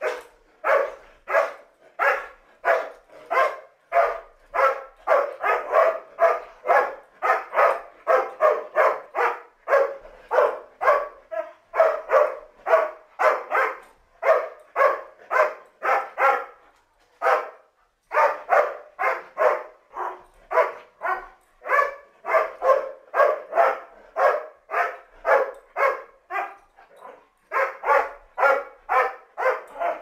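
Doberman Pinscher barking over and over at about two barks a second, with two short breaks in the middle.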